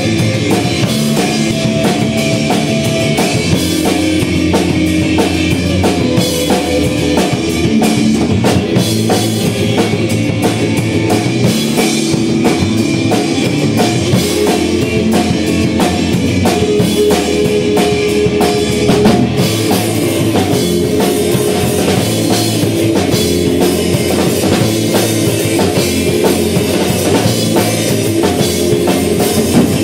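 A live rock band playing loud and without a break: electric guitars and a bass guitar over a drum kit.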